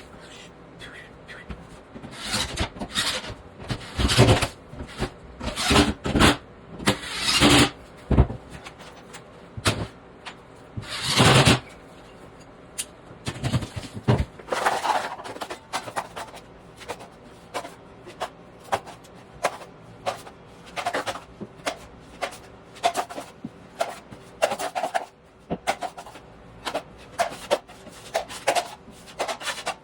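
Hand tools scraping and rubbing on drywall in irregular strokes: several longer, louder strokes in the first half, then quicker, shorter ones.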